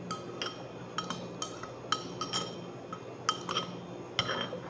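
Metal spoon clinking against a ceramic bowl of noodle soup as it scoops, a dozen or so light, irregular clinks that each ring briefly.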